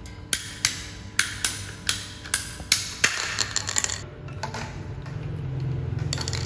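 A run of sharp, hard knocks and clicks, about three a second, closing in a quicker cluster of ticks; then a low steady hum comes in about four seconds in.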